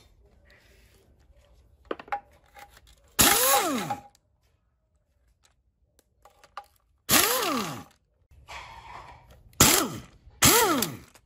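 A hand-held power tool triggered in four short bursts, its motor pitch rising and falling with each pull, with a few light knocks in between.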